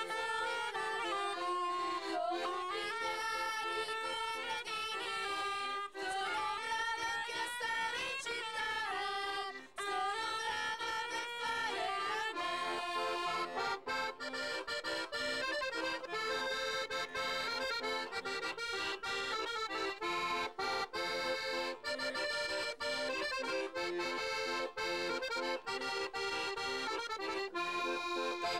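Accordion playing a traditional folk dance tune, a moving melody over steady held lower notes, with quicker running notes in the second half.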